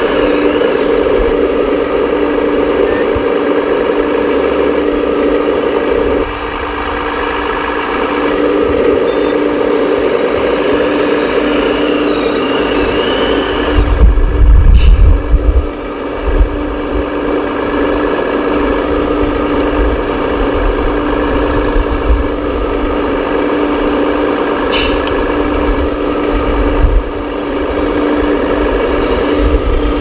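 Radio-controlled model excavator working, its motors and hydraulics giving a steady mechanical drone that dips briefly about six seconds in and comes back. A loud low rumble rises over it around fourteen to sixteen seconds in.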